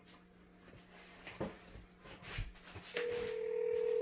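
Ringback tone of an outgoing phone call on a smartphone speakerphone: a steady ring starts about three seconds in and holds, meaning the dialled number is ringing and nobody has answered yet. A couple of faint knocks come before it.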